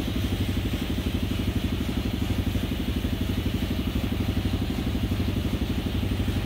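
Air compressor running steadily with a fast, even chugging, pumping up the pressure tank of a homemade air gun.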